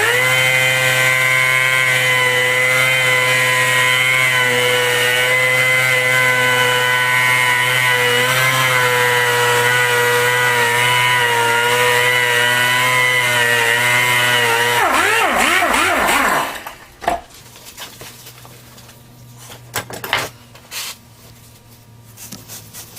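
A power grinder fitted with a 36-grit Bondo buster disc runs at a steady speed, sanding down seat foam. About fifteen seconds in it is switched off and winds down with a falling whine, followed by faint rubbing and handling sounds.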